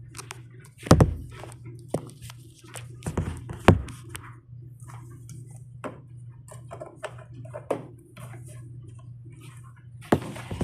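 Handling knocks and clicks of plastic vacuum parts as the hose is inserted and twisted to lock onto a Bissell PowerForce vacuum, over a steady low hum. The loudest knocks come about a second in and again just under four seconds in.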